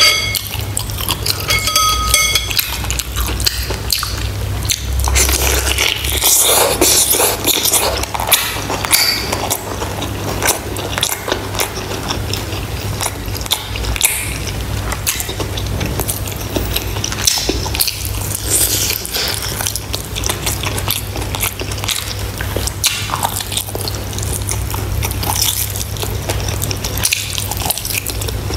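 Close-miked eating sounds: wet chewing, biting and sucking at the meat on a pork bone from soup, with many small clicks. A metal spoon rings briefly against the ceramic bowl about two seconds in, over a steady low hum.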